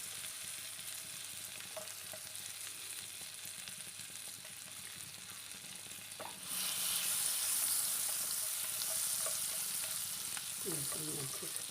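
Garlic sizzling in butter in a frying pan, the sizzle getting louder about six and a half seconds in.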